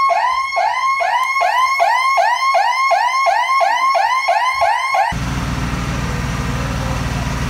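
An electronic alarm siren wailing in quick repeated up-and-down sweeps, about two and a half a second. About five seconds in it cuts off abruptly and gives way to a steady low mechanical hum.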